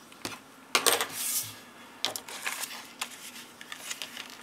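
Cardstock being handled on a craft mat: a rustling slide of paper about a second in, with scattered clicks, taps and short scrapes as the card panel and bone folder are moved and set down.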